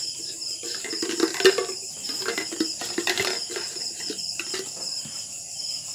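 Crickets chirping steadily, with scattered light clicks and knocks from a plastic paint container being handled, the sharpest about a second and a half in.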